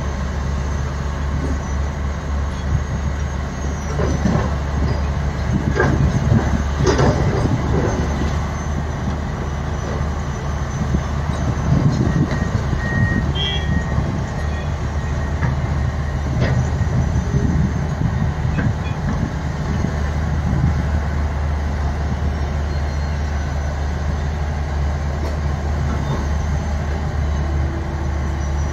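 Tata Hitachi 470 excavator's diesel engine running steadily under load while it digs and loads blasted rock. Rocks knock and scrape against the steel bucket now and then, most thickly about four to eight seconds in.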